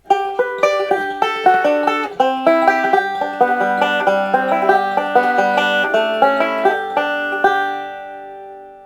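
Intro music: a quick banjo tune, rapidly plucked notes that end about seven and a half seconds in on a final chord left ringing and fading away.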